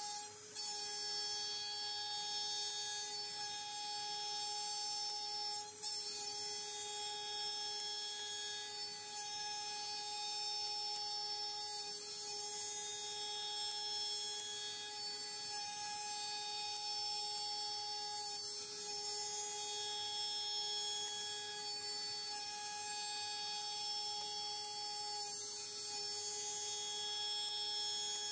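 CNC router spindle (AMB/Kress FME1050) running at a steady high whine, briefly dipping just after the start and again about six seconds in.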